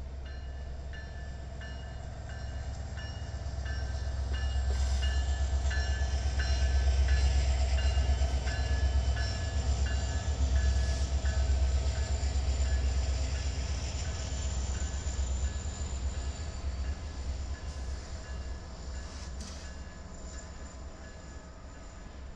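A train passing: a deep rumble that builds over about seven seconds, stays loud for a while, then slowly fades, with a steady run of short high rings about two a second throughout.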